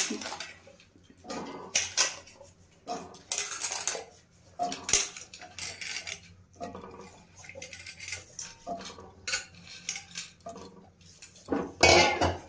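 Chopped carrot and beetroot pieces dropped by hand into an aluminium pressure cooker, with irregular clinks and clatters of the pieces and the steel bowl against the pot. Near the end there is a louder clatter as the pressure cooker lid is handled.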